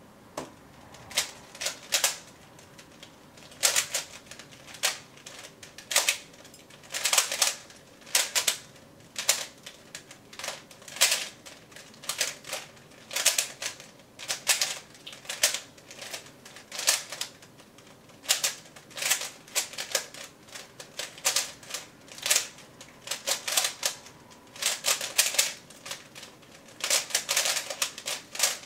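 3x3 Rubik's cube being turned fast during a timed speedsolve: rapid plastic clacks of the layers snapping into place, in quick bursts with short pauses between. The clacking starts about a second in.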